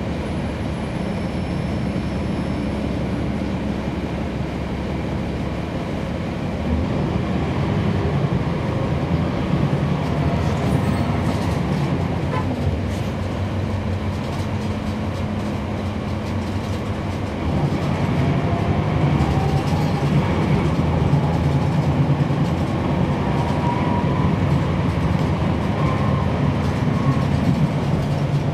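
Interior drone of a NABI 40-foot transit bus's Cummins ISL9 diesel engine under way, heard on board. The drone steps up louder about a quarter of the way in and again a little past halfway, with a faint rising whine just after the second step.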